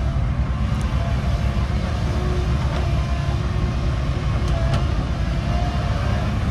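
Heavy diesel machinery of a Komatsu excavator loading a dump truck, running with a steady low rumble, with a few faint light clicks.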